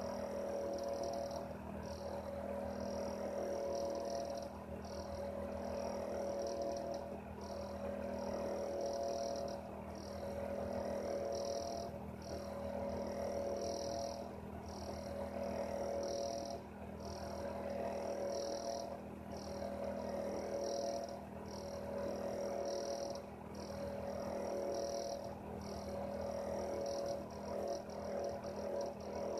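A heater running: a steady hum with a high, rattling chatter that repeats about once a second.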